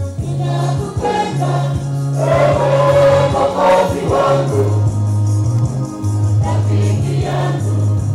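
Church choir singing a hymn over keyboard accompaniment, the bass holding long notes that change step by step, the voices swelling in the middle.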